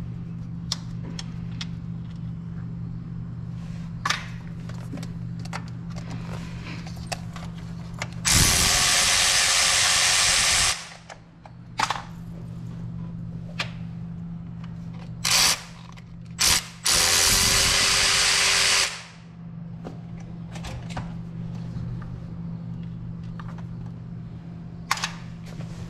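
A power tool driving a socket on a long extension, run in two bursts of about two seconds each, one about 8 seconds in and one about 17 seconds in, with two short blips between them, as bolts are taken out for valve cover removal. Under it a steady low hum and small clicks and knocks of hand tools.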